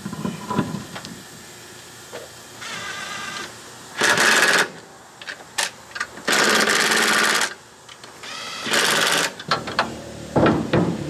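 Cordless impact wrench run in short bursts, three loud ones and a shorter, quieter one before them, driving lug nuts onto a pickup truck's wheel. A few clicks and knocks near the end.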